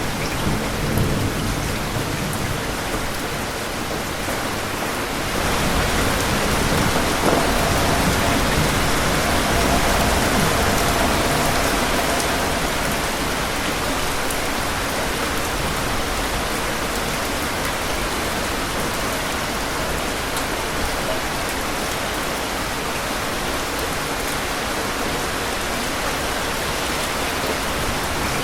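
Heavy, steady rain with thunder rolling underneath, the low rumble strongest in the first few seconds. The rain swells a little louder about six seconds in.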